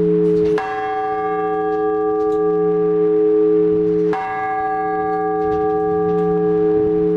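Orthodox church bells ringing: two strokes about three and a half seconds apart, each ringing out over a steady low hum from the bells.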